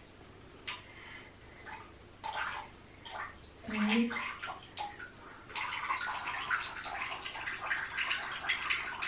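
Water splashing in a small plastic baby bath, with scattered splashes at first, then a steady splashing of water being scooped and poured from a plastic cup from about halfway through. A brief voice sound about four seconds in.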